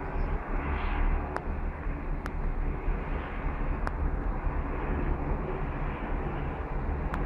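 Steady low outdoor rumble of background noise, with a few faint sharp clicks.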